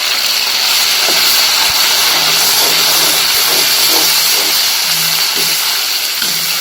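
Ginger and fermented chili paste frying loudly in hot rendered pork fat, a steady sizzling hiss.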